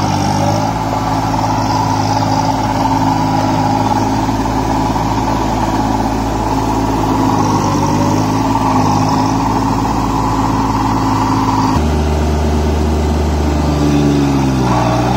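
Kubota 21 hp mini tractor's diesel engine running steadily under load while it drives a rotavator puddling a flooded paddy field. Near the end the engine note dips and recovers.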